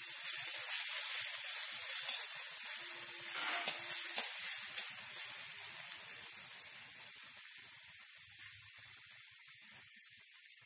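Ground garlic and white pepper paste sizzling in hot oil in a wok as it is sautéed; the sizzle fades gradually toward the end.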